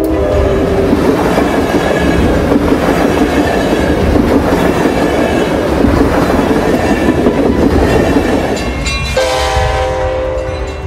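A train running past with a loud rumble and wheel clatter on the rails. Near the end its horn sounds, several tones held together.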